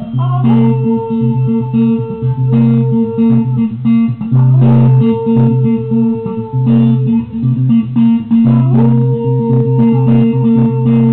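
Electric guitar played through a Vox combo amplifier, with a Bernese mountain dog howling along in long held notes that slide up into pitch a few times.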